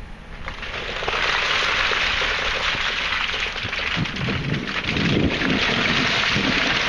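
Coal tipped from a loader's bucket, pouring and clattering in a continuous rush that starts about a second in, with heavier low thuds from about four seconds in as the bulk of the load drops.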